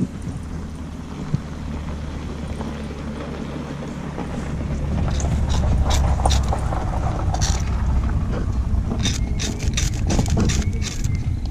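Knife spine scraped hard down a ferrocerium fire-steel rod to throw sparks onto fatwood shavings: a few sharp rasping strikes from about five seconds in, then a quick run of strikes near the end. A steady low rumble runs underneath.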